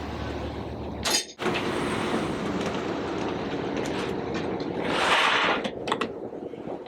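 A vehicle's steady rumble, broken by a short dropout about a second in, with a brief hiss about five seconds in.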